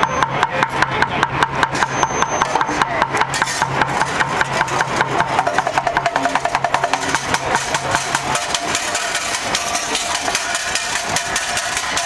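Street bucket drummer beating a fast, steady rhythm with sticks on makeshift drums: a plastic jug, a metal tin on a wire rack and plastic buckets, at about five strokes a second.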